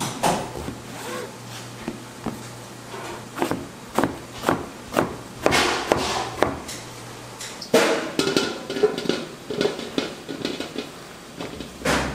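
Chef's knife chopping eggplant on a plastic cutting board: irregular knocks of the blade striking the board as it cuts through the eggplant.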